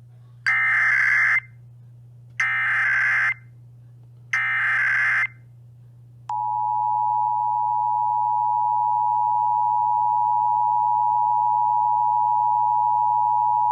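Emergency Alert System header tones: three short bursts of SAME digital header data, each about a second long and two seconds apart. Then the steady two-tone EAS attention signal starts about six seconds in and holds. Together they announce a statewide test of the Emergency Alert System.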